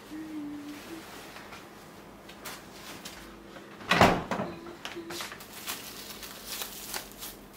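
Kitchen handling sounds: a refrigerator door shuts with a thump about four seconds in, amid light rustling and clicks of plastic bags and a mesh produce bag of corn being handled.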